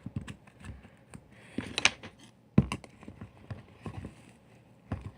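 Brown slime mixed with foaming soap being squished and poked by hand, making irregular wet clicks and pops, with a few sharper pops near the middle and end.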